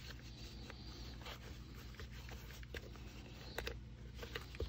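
Faint scraping and rustling of a clip-in liner's webbing and metal clips against the inside of a steel M80 helmet shell as the clips are worked onto the helmet's studs, with a few small clicks.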